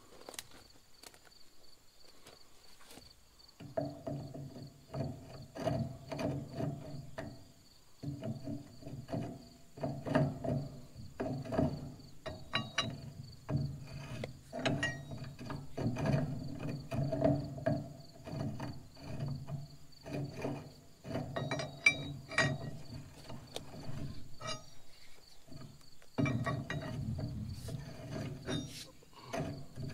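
Hand tap being turned with a wrench to cut threads in a cast-iron tractor manifold: metal creaking and squeaking in short repeated strokes, starting a few seconds in and pausing briefly about eight seconds in and again near the end. Crickets chirp steadily behind it.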